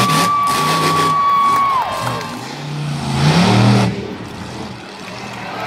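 Monster truck engine running hard with a steady high whine that drops away a little under two seconds in, then revving up again about three seconds in, over a cheering crowd.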